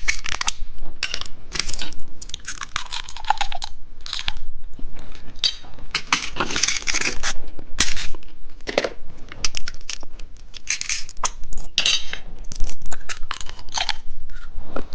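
Plastic candy packaging crinkling and crackling in irregular bursts as a packaged novelty candy is handled and taken off its display.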